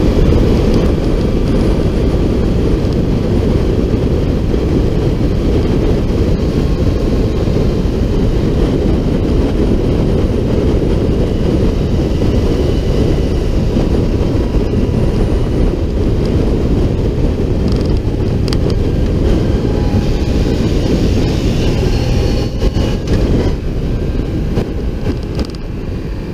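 A motorcycle riding at road speed: a steady, dense rush of wind and road noise on the bike-mounted camera, with the engine running beneath.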